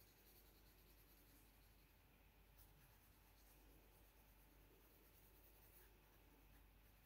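Faint scratching of a graphite pencil drawing strokes on sketch paper, barely above the quiet room tone.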